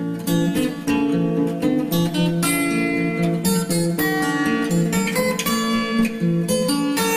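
Background music led by a plucked acoustic guitar with strummed chords.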